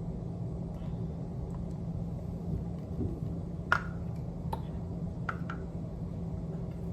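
Steady low hum, with four short sharp clicks or ticks a little past the middle, the first the loudest.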